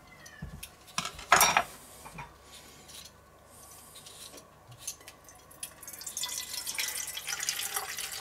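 A single knock about a second in. Then, from about six seconds in, pickle brine pours in a steady stream from a glass gherkin jar into a stainless steel bowl.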